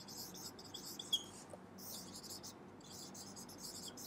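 Whiteboard marker writing on a whiteboard: a run of faint, short, high-pitched squeaky strokes with brief pauses between words.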